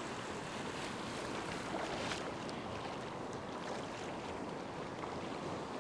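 Shallow surf washing steadily around the legs of someone wading, with a few faint sharp ticks.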